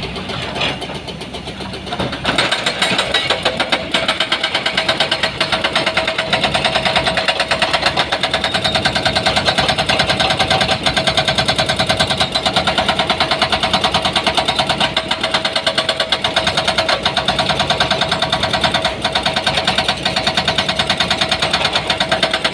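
Heavy diesel engine of earthmoving machinery running hard, growing louder about two seconds in and then holding steady with a rapid, even pulsing.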